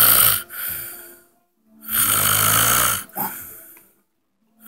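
A sleeping man snoring loudly, a loud snore about every two and a half seconds. Each snore lasts about a second and is followed by a softer, fading breath and a brief silent pause.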